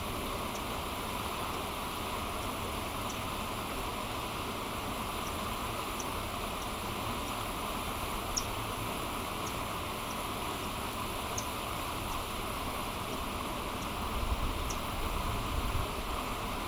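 Steady rushing of stream water, with short faint high-pitched chirps or ticks every second or so and a low rumble rising near the end.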